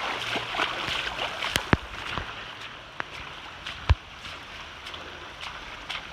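Storm runoff from heavy hurricane rain flowing as a shallow, foot-deep stream, a steady rushing of water that eases after about two seconds. A few short sharp knocks, the loudest nearly four seconds in.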